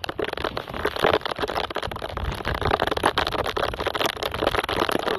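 Wind and rain noise buffeting the microphone on an open fishing boat: a rough, steady rushing full of irregular crackles.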